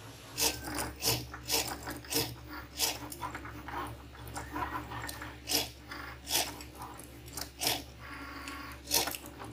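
Cricut Maker cutting machine running a cut. A steady motor hum starts about half a second in, with irregular sharp clicks and taps from the moving carriage and blade, roughly one to two a second.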